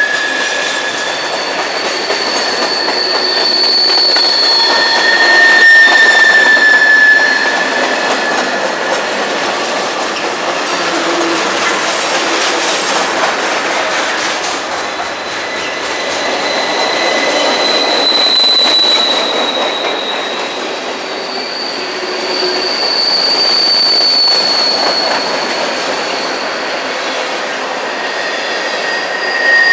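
Loaded freight cars rolling past close by: a steady rumble of steel wheels on rail. High-pitched wheel squeals come and go every few seconds.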